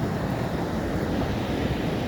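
Ocean surf: a steady, deep rush of breaking waves.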